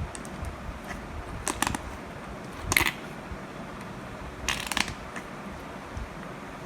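Slime being squeezed and worked in the hands, giving short squelches and air pops: three brief bursts, the loudest a little under three seconds in.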